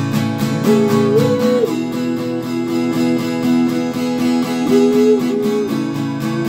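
Acoustic guitar strummed in a steady, even rhythm, chords ringing between the strokes, in an instrumental passage of a song with no singing.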